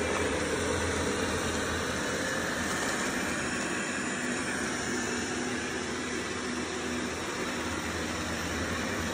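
Dreame L20 Ultra robot vacuum cleaner running: its suction fan and brushes give a steady whir as it drives over the floor.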